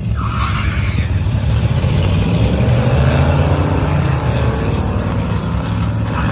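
Vintage car engine running, growing louder to about three seconds in and then easing off a little.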